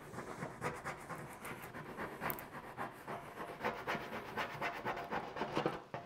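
A plastic filler spreader rubbing over a vinyl registration sticker on an aluminium boat hull in quick, repeated short strokes, pressing the sticker flat and working out air bubbles.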